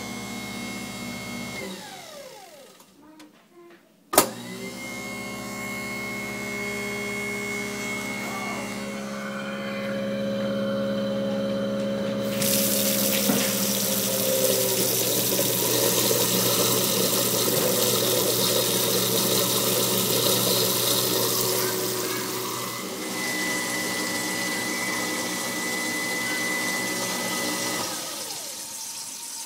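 Waste King Legend L-111 1/3 hp garbage disposal's motor running with a steady hum, then switched off and winding down. A sharp switch click about four seconds in starts it again. From about twelve seconds in, tap water pours through the drain while it runs, and near the end it is switched off and winds down again.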